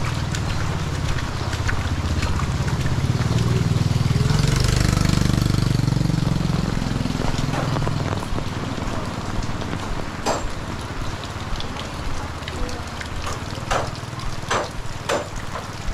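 Heavy rain falling steadily while a motor vehicle passes, its engine hum growing to a peak about five seconds in and fading by about eight seconds. In the second half a few sharp taps stand out over the rain.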